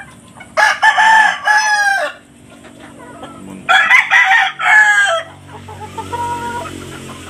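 Rooster crowing twice, each crow about a second and a half long, with a fainter call near the end.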